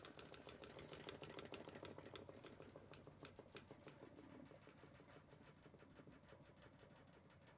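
Homemade magnetic motor's rotor disc spinning, giving a faint, rapid, even ticking that fades gradually.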